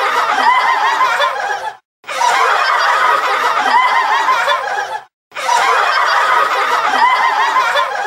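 Laughter sound effect: several voices laughing at once, in takes about three seconds long, with brief silent breaks about two and five seconds in.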